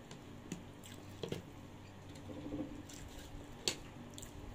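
Eating sounds: wooden chopsticks clicking and scraping against plastic takeaway containers, with soft chewing. There are a few sharp clicks, the loudest a little past three and a half seconds in, over a faint steady room hum.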